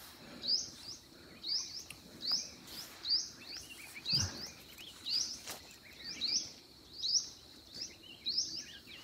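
A wild bird calling over and over: a short, high, rising chirp repeated a little more than once a second. There is a soft thump about four seconds in.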